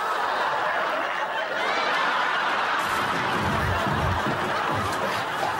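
Studio audience laughing steadily, with dull thumps from a slapstick scuffle starting about three seconds in.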